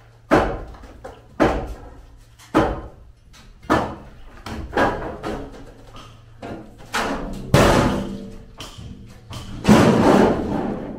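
Timber shuttering being knocked loose from a concrete slab: heavy wooden knocks about once a second, each ringing on briefly, the loudest two in the last few seconds. Music comes in faintly near the end.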